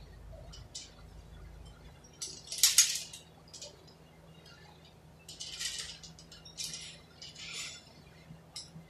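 Metal automatic-transmission parts clinking and rattling as they are picked up and handled by hand: a few short rattles, the loudest about two and a half seconds in, then three more between about five and eight seconds in.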